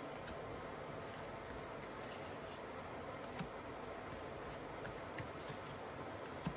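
Cards being handled and laid out on a cloth-covered table: faint sliding and a few light clicks over a steady hiss.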